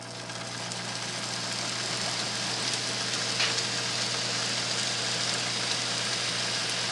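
Home-built 2x72 belt grinder driven by a treadmill motor, winding up to speed under its variable-speed control and then running steadily. A constant motor hum sits under the hiss of the abrasive belt running over the wheels.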